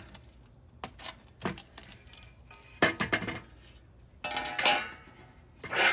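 Sharp metallic clinks and knocks from a rusted-out ATV muffler being handled and turned over. There are single knocks about a second apart, then a louder rattling clatter about four seconds in.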